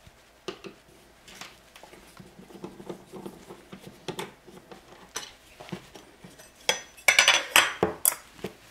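Screwdriver turning out the screw of a stainless steel outlet cover plate, with small metal clicks and scrapes, then the loose metal cover plate clinking as it comes off the wall about seven seconds in.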